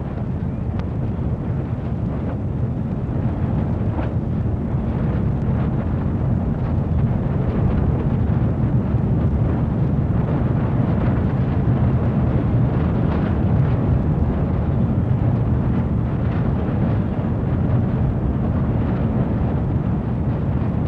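A loud, steady low rumble, even and unbroken throughout.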